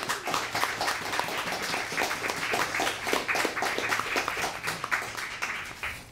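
Audience applauding, dense hand claps that fade out near the end.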